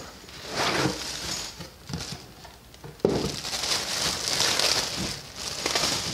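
Cardboard box being handled as the hose is slid out, then, from about three seconds in, a plastic bag crinkling loudly as it is torn open and pulled off the coiled fabric-covered hose.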